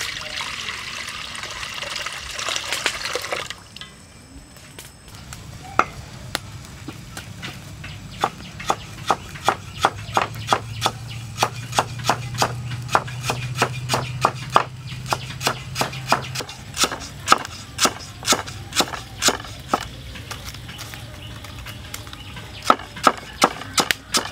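Water poured from a plastic bowl into a steel wok, splashing for about three seconds. Then a cleaver chopping on a wooden block, slicing lemongrass: sharp, separate knocks, roughly one or two a second, going on to the end.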